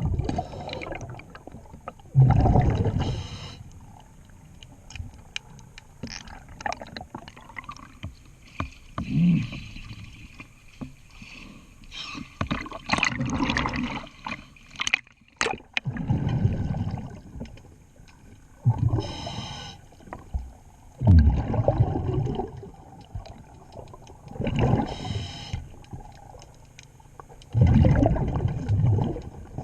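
Underwater sound of a scuba diver's breathing: exhaled bubbles gurgle out in loud bursts every few seconds, between hissing breaths through the regulator. Scattered clicks and knocks come from work on the propeller.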